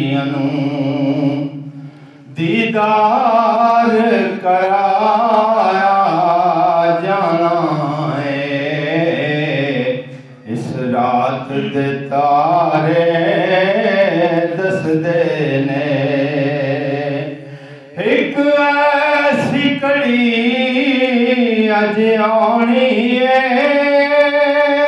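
A man reciting a Punjabi naat, singing unaccompanied into a microphone. Long, drawn-out melodic phrases with wavering held notes are broken by brief pauses for breath about every eight seconds.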